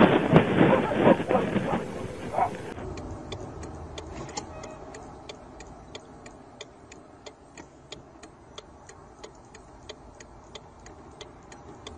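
Loud rushing noise with a few sharp knocks for nearly three seconds, then, after a cut, a faint steady ticking of a few clicks a second.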